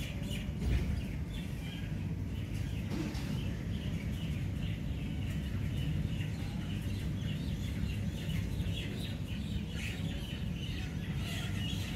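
Small birds chirping again and again over a steady low rumble.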